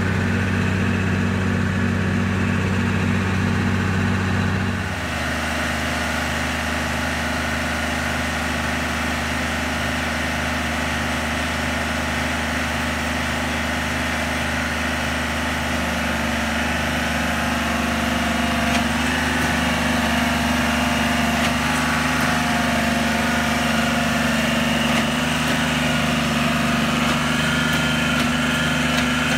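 Engine of a railroad spike-driving machine running steadily. Its tone shifts about five seconds in, then holds even.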